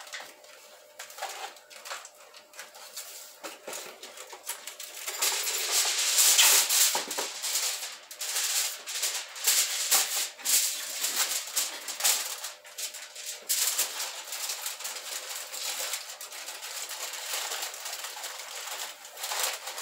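Aluminium foil crinkling and rustling in irregular bursts as it is folded and pressed down over foil loaf pans, loudest a few seconds in.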